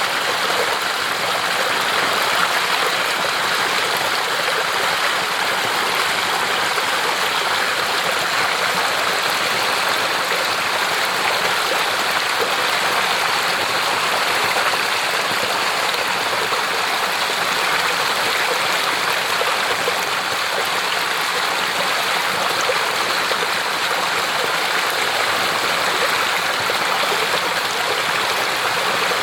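Clear mountain stream rushing and babbling over rocks, a steady, even sound of running water.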